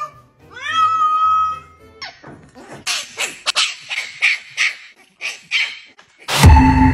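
A wet cat gives one drawn-out cry that rises and then holds. It is followed by a puppy yipping and barking in quick short bursts over background music. Just before the end a loud held tone cuts in.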